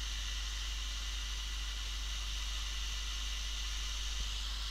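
Hot air rework gun blowing a steady hiss of hot air onto a circuit board to melt the solder under a coil, over a low steady hum.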